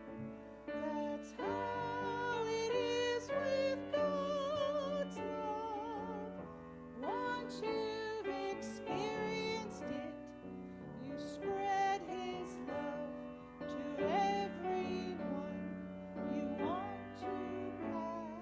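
A woman singing a hymn with a wide vibrato, accompanied by piano.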